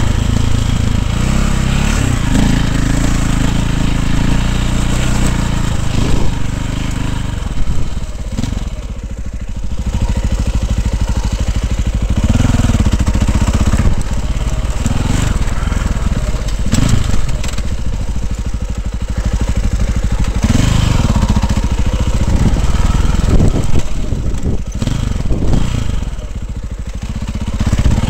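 Dirt bike engine heard close up from a helmet camera while riding: it runs steadily at first, then revs up and down repeatedly as the throttle is worked over the terrain, dropping away briefly twice.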